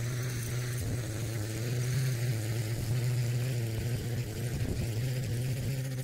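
A small engine running steadily with a low drone, its pitch wavering slightly.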